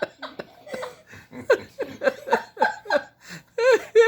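People laughing in quick repeated bursts, with a longer, higher, wavering laugh a little before the end.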